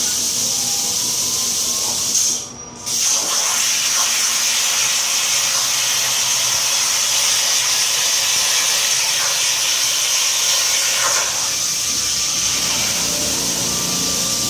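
Hypertherm Powermax 65 plasma cutter running, a loud steady hiss of air and arc. It breaks off briefly a little over two seconds in, and its sound changes about eleven seconds in.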